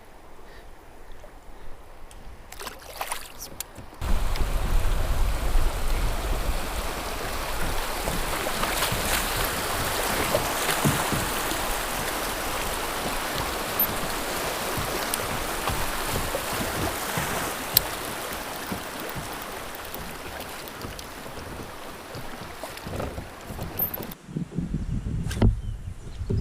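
Rushing white water of a small river rapid as a kayak runs through it. The noise starts abruptly about four seconds in, is loudest in the middle and falls away shortly before the end.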